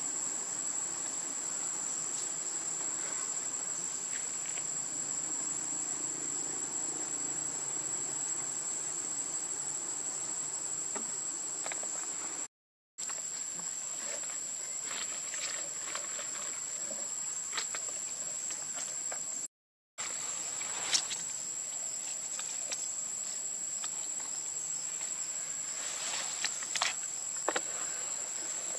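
Steady, high-pitched drone of an insect chorus in tropical woodland, with faint clicks and rustles scattered through it. A sharper click comes about two-thirds of the way in, and a few more near the end. The whole sound drops out briefly twice.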